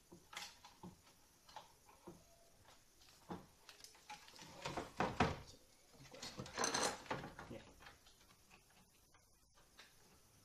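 Hands working inside an opened LCD monitor as binding tape is fixed over a cable connector: scattered light knocks and rustles of plastic and tape. There are two louder rustling bursts, about five and seven seconds in.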